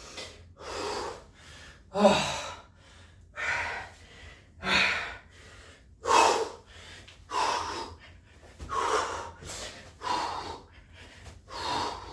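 A man breathing hard from exertion, heavy gasping breaths about once a second.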